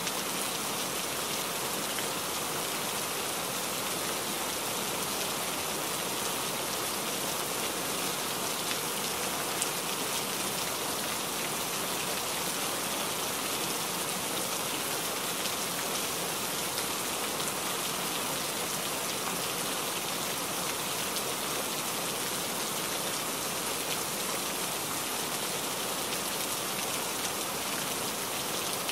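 Steady rain on a moving truck's cab, heard from inside: an even hiss with a few faint ticks of drops striking.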